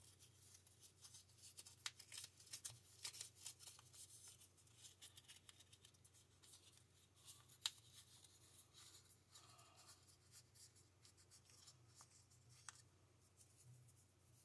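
Faint rustling and crackling of a paper strip being rolled tightly between the fingers into a small tube. The crackles are dense through the first half, with one sharper tick about halfway, then thin out.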